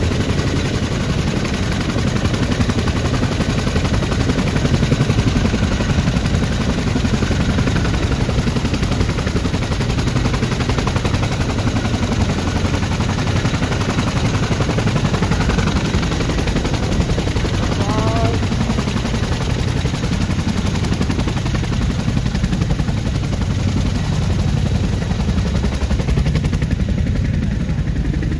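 Boeing CH-47 Chinook's twin turbine engines and tandem rotors running on the ground, a loud, steady, rapid chop of the blades.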